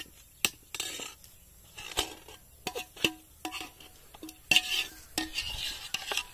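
Steel spoon stirring chicken in a metal cooking pot: repeated scrapes and knocks against the pot, several leaving a short ring, with a louder stretch of scraping about four and a half seconds in.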